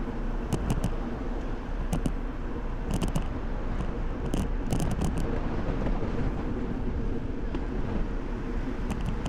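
Riding noise from a moving bicycle: a steady rush of wind and tyre-on-road noise, with a scattered handful of light clicks and rattles.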